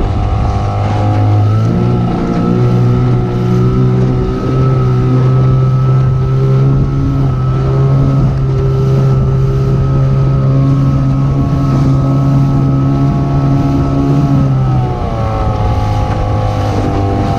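Boat engine speeding up about two seconds in, running at a steady speed, then easing back to a lower speed near the end, with wind on the microphone.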